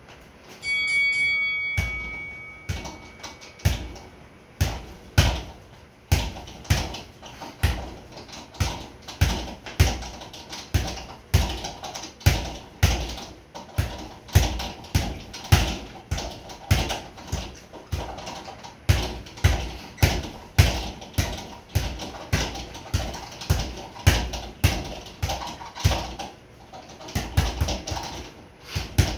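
Boxing gloves repeatedly striking a sideways double-end (kangaroo) bag, a steady run of sharp thuds about one to two a second as the bag swings and rebounds. A short ringing tone sounds about a second in.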